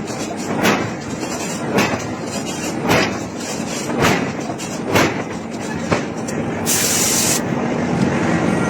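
Heavy hammer blows on iron at a forge, evenly spaced about one a second, six in all. Near the end a short hiss cuts in, followed by a steady mechanical drone.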